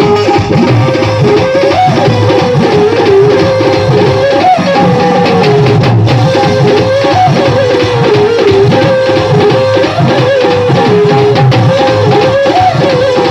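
Electronic keyboard playing a song melody, one lead line moving up and down over a steady drum rhythm from the keyboard's accompaniment.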